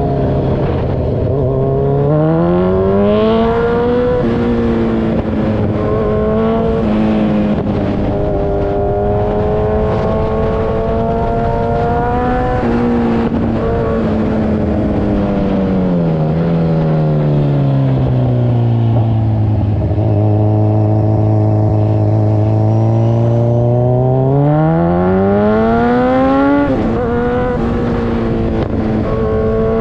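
Kawasaki Z1000 Sugomi's inline-four engine running through an Avionic V4 aftermarket exhaust while riding. Its pitch climbs over the first few seconds and holds, sinks slowly to a low steady drone around the middle, then climbs sharply again, with a brief drop in pitch near the end.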